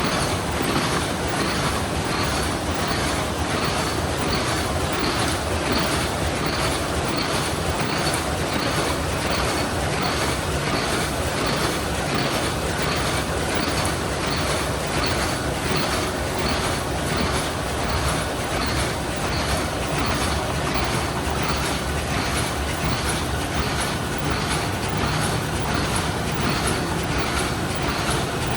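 JL-C100 high-speed paper cup machine running empty on a test before paper is loaded, its mechanism clattering in a steady rhythm of a little under two strokes a second.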